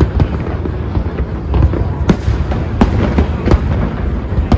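Aerial fireworks display firing in quick succession: a string of sharp bangs and crackles at uneven intervals over a continuous deep rumble of distant booms.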